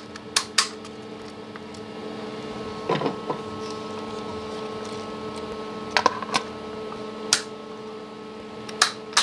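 Irregular sharp clicks and knocks, about ten of them, from a motor circuit breaker being handled on a workbench after reassembly, over a steady multi-tone hum from nearby equipment.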